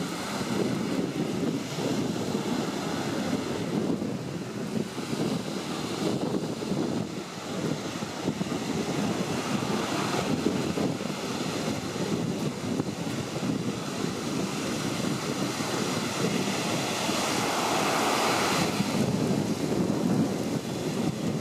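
Surf breaking and washing on a beach, swelled by an approaching typhoon, with strong gusty wind buffeting the microphone. The noise rises and falls with the gusts and breakers, and a louder breaker surges about three-quarters of the way through.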